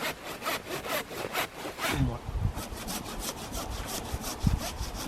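Hand saw cutting through the trunk of a Christmas tree, in quick back-and-forth strokes of about four a second, with a few low knocks in the second half.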